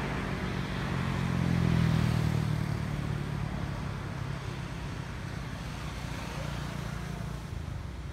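A motor vehicle's engine passing by: its hum rises to its loudest about two seconds in, then fades away.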